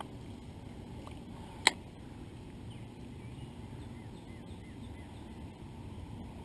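A single sharp metallic click from a Shimano Sedona spinning reel, about a second and a half in, over a steady low outdoor rumble. Faint short bird calls come in after it.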